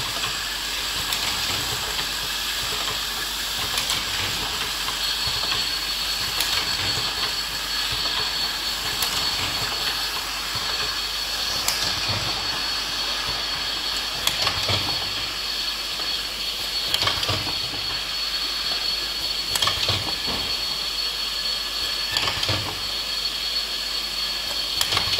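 Automatic jar filling and capping machine running: a steady hiss with a high whine, and sharp clicks every two to three seconds as the pneumatic capping and stop cylinders work.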